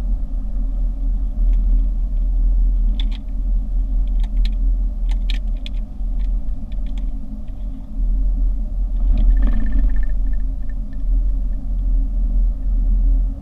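Car driving: a steady low rumble, with scattered sharp clicks a few seconds in and a short run of high ticking around the middle.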